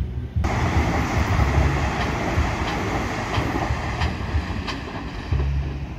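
An ITX-Saemaeul electric passenger train passing at speed, a steady rush of wheels on rail with a low rumble and a few sharp clicks of the wheels over rail joints. The rush starts abruptly about half a second in and eases off slightly near the end.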